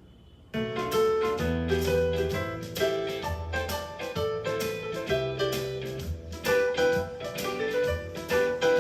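Piano-led music with a bass line played back through a portable Bluetooth speaker in a sound test; the music starts after a brief pause about half a second in.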